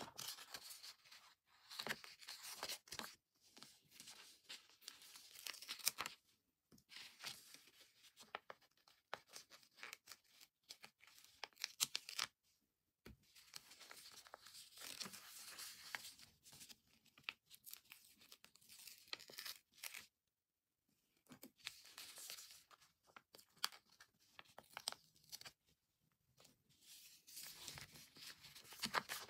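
Sticker sheet and its backing paper being handled and peeled: stiff paper rustling and crinkling in irregular bursts with small clicks, broken by a few brief pauses.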